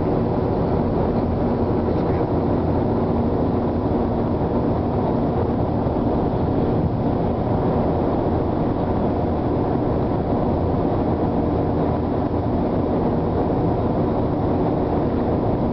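Truck towing trailers on the road at a steady pace: continuous engine and road noise, mostly low-pitched, with a faint steady hum.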